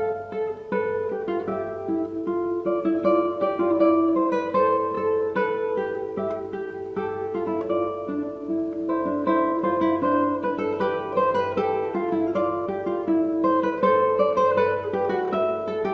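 Background music: acoustic guitar playing a steady run of quick plucked notes.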